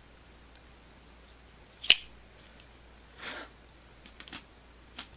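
Folding pocketknife's blade snapping shut with a sharp metallic click about two seconds in, followed by a brief rustle and a few light clicks of handling.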